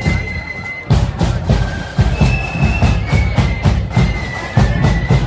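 Marching flute band playing: flutes carry a melody of held high notes over drums beating about twice a second.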